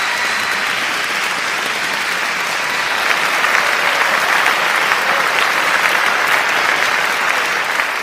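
A crowd applauding, a dense continuous clapping that grows louder and sharper about three seconds in.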